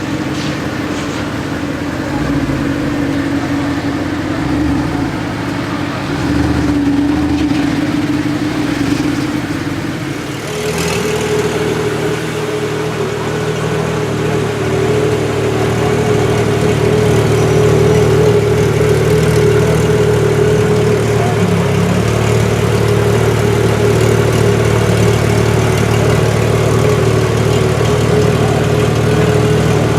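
Supercar engine and exhaust idling, with light blips of the throttle. About ten seconds in, a different engine takes over with a steady, slightly deeper idle that grows a little louder.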